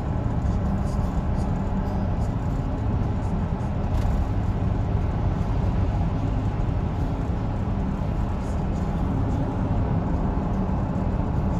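Steady low engine and road drone inside a car's cabin while driving.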